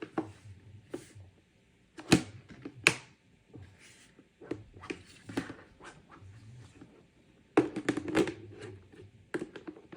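Irregular knocks and rattles of plastic as the lid of a collapsible mini washing machine is pushed down and won't seat over the load. Two sharp knocks come a few seconds in, and a quick cluster of knocks and rustling comes near the end.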